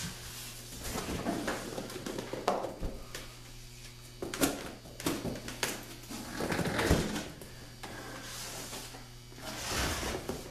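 Large empty cardboard shipping box being handled and moved: cardboard rustling and scraping, with several sharp knocks about two to six seconds in, over a steady low hum.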